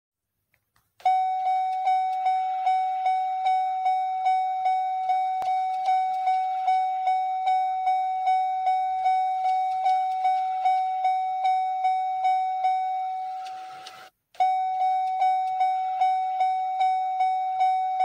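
GMC vehicle's door-open warning chime ringing as a fast, even string of electronic dings, about two and a half a second. It stops briefly about 14 seconds in, then starts again at the same pace.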